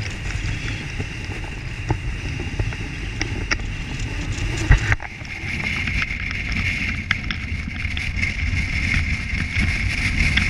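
Wind buffeting an action camera's microphone on an exposed snowy hillside, a gusty rumble with a steady hiss above it. Scattered light clicks are heard, and a sharp knock comes just before five seconds in.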